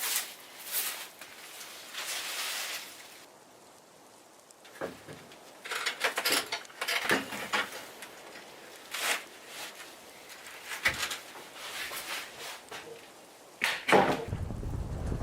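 Irregular rustling and scraping handling noises. About fourteen seconds in there is a sharp knock, and then wind starts rumbling on the microphone.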